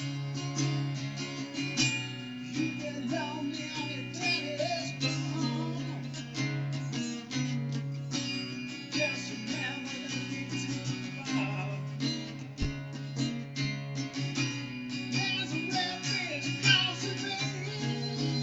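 Gretsch Jim Dandy parlor-size flat-top acoustic guitar being played, picked and strummed notes over a steady low bass note, with some notes bending in pitch.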